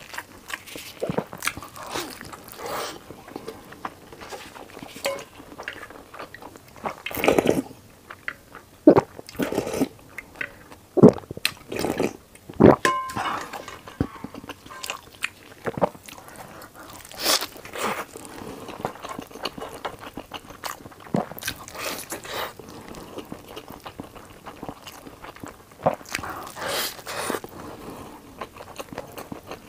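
A person biting into and chewing a crisp fried beef-filled flatbread. The bites give irregular crunches and crackles between quieter chewing, with a louder run of crunches about a third of the way in.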